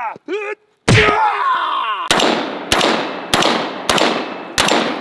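A sharp whack about a second in, trailed by a low falling groan-like tone, then five rapid rifle shots about 0.6 s apart from an AR-15, each ringing out and fading.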